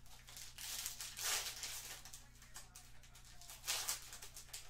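Foil wrapper of a trading card pack being torn open and crinkled by hand, in uneven crackly bursts, loudest about a second in and again near the end.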